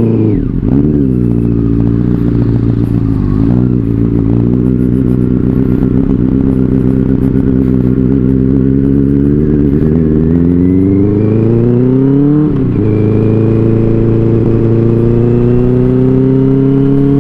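Benelli 600i inline-four motorcycle engine through an aftermarket IXIL exhaust, under way: engine pitch climbs steadily under acceleration, drops sharply at an upshift about twelve seconds in, then climbs again in the next gear.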